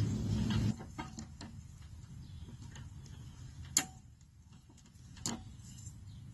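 A steady low motor hum cuts off under a second in, then scattered clicks and a few sharp metallic clinks as a new mower blade and its mounting hardware are handled and fitted to the mower deck.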